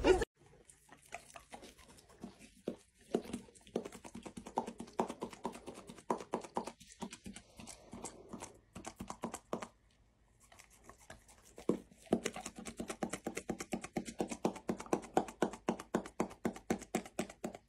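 A golden retriever panting quickly, about five breaths a second, with a short pause about ten seconds in.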